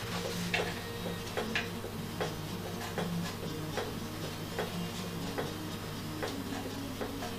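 Irregular light clicks and taps of wooden parts of a wooden music-box mechanism being handled and adjusted, about one or two a second.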